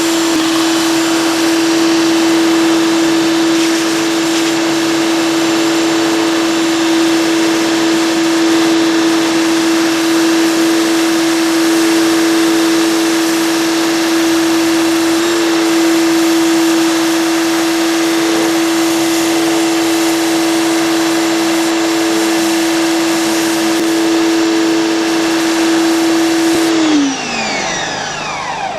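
Greenworks 2000 PSI electric pressure washer running, its motor and pump giving a steady hum over the hiss of the water spray. Near the end the motor shuts off and winds down in a falling pitch.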